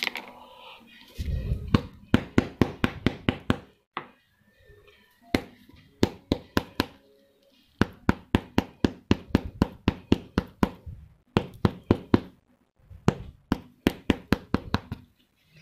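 Rapid knocking on a sneaker's rubber sole, struck over and over to press the freshly glued sole down flat. The knocks come about five a second in runs, with short pauses between runs.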